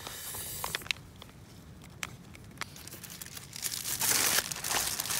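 A foil food pouch is stirred with a spoon and handled, giving a few light clicks and rustles, then louder crinkling of a plastic mailer bag starts about four seconds in.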